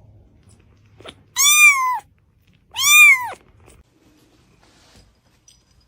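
A cat meowing twice, each meow rising and then falling in pitch, the second starting about a second and a half after the first.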